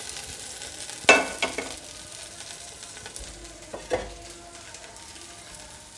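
Hot oil sizzling steadily in a large pot where cashews and raisins are frying, with a sharp clank of cookware about a second in, a smaller one just after, and another near four seconds.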